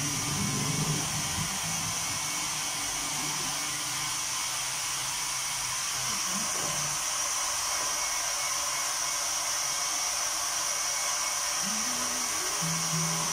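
Handheld hot-air dryer blowing steadily with an even high hiss, drying water-based ink on a freshly printed nylon umbrella panel.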